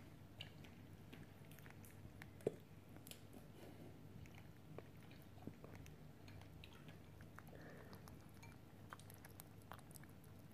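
Domestic rabbit chewing a piece of strawberry: faint, irregular soft chewing clicks, with one sharper click about two and a half seconds in.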